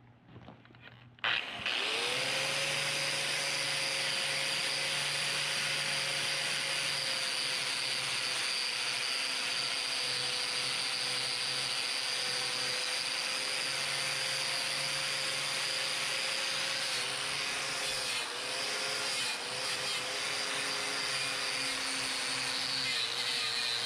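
Corded angle grinder starting up about a second in, its motor whine rising and settling, then grinding a steel plate with a steady high hiss. The motor pitch dips several times in the last third as the disc is pressed into the steel.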